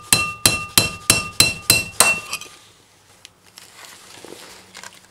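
Hammer striking a screwdriver set against the old outer bearing race inside a Dodge Ram front wheel hub-and-rotor to drive the race out: about seven sharp, ringing metal-on-metal blows at roughly three a second, stopping about two and a half seconds in, followed by a few faint clicks.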